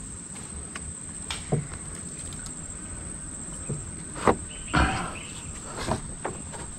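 A steady high-pitched insect chorus, with scattered knocks and rustles from a fish and tackle being handled in a boat. The loudest knock comes about four seconds in, followed by a short scuffle.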